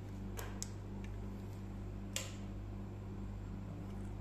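A steady low electrical hum, with a few light clicks and taps from a wristwatch being handled, the sharpest about two seconds in.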